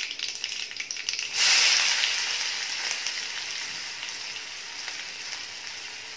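Mustard seeds crackling in hot oil with green chillies and curry leaves in an iron kadhai. About a second and a half in, chopped onion goes into the oil and it breaks into a loud sizzle that slowly dies down.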